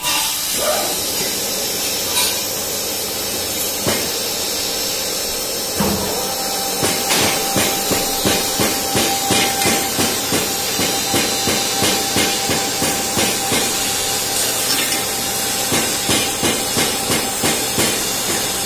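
Metal lathe running with a motorcycle wheel hub mounted on it, a steady mechanical noise. About six seconds in, a steady whine joins and a regular knocking sets in, about twice a second.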